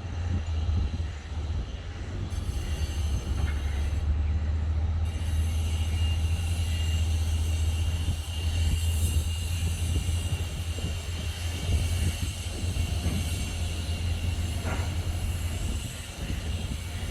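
Outdoor city ambience: a steady low rumble with a constant hiss above it.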